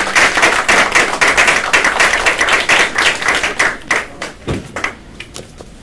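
A small audience applauding: dense hand-clapping that thins out and fades about four seconds in, with a few last scattered claps and a low thump near the end.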